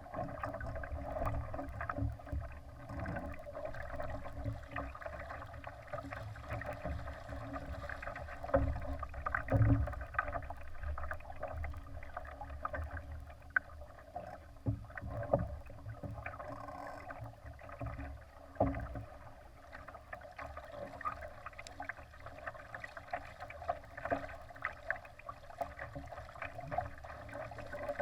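Water rushing and slapping against a Laser sailing dinghy's hull while under sail, over a steady low rumble, with scattered louder splashes or knocks, the strongest about ten seconds in and again about two-thirds of the way through.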